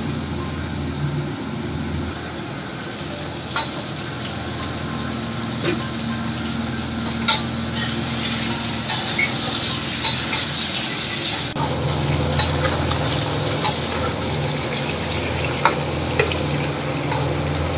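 Duck pieces sizzling in a wok over a gas burner, turned with a metal spatula that scrapes and clinks against the wok about every one to two seconds, over a steady low hum.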